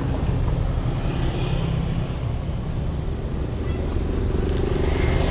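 Steady street traffic: motorbike and car engines running past with a continuous low rumble.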